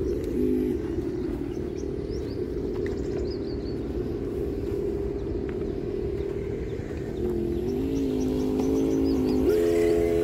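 Radio-controlled scale off-road truck running: a steady drone of several tones that steps up in pitch in stages near the end as the truck drives off across loose wood chips. Birds chirp faintly in the background.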